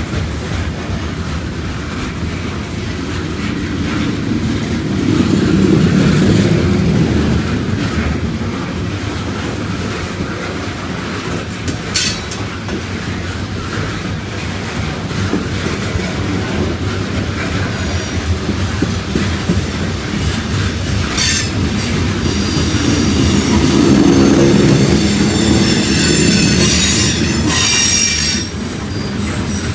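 Norfolk Southern freight cars, open-top coal hoppers, rolling past with a steady rumble of steel wheels on rail. Brief high wheel squeals come about twelve and twenty-one seconds in, and a longer stretch of squealing near the end as the rumble swells.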